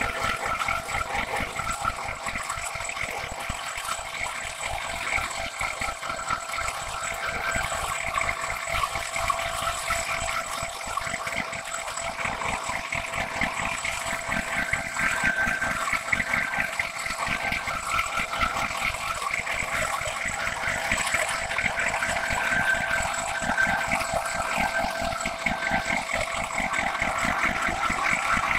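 Milling cutter on a metal planer mill making a long continuous cut along a steel wear rail: a steady cutting noise with a hiss of coolant mist and a steady high whine.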